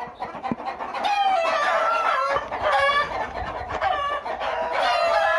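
Country chickens: roosters crowing, several long crows overlapping one another from about a second in, with hens clucking among them.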